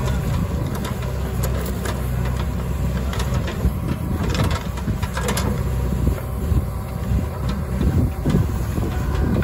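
A JCB 3DX backhoe loader's diesel engine runs under load as its backhoe bucket empties soil and stones into a lorry's steel tipper body. Irregular knocks and clatter come from clods landing, most of them in the first half and again near the end.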